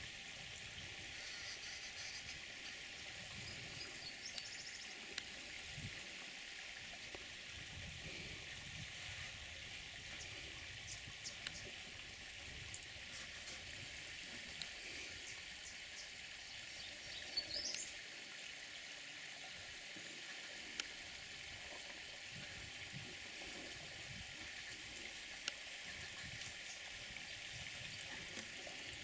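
Faint, steady high hiss of open-air ambience, broken by scattered soft clicks and a few brief high chirps. The loudest is a short rising chirp about two-thirds of the way through.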